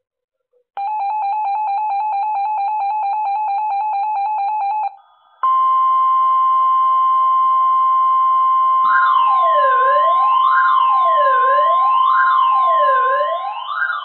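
Weather alert radio sounding an alert. A rapidly pulsing electronic beep starts just under a second in. About five seconds in, the steady NOAA Weather Radio warning alarm tone begins. About nine seconds in, a siren-like tone sweeping up and down joins it. Together they signal a Flood Warning being received.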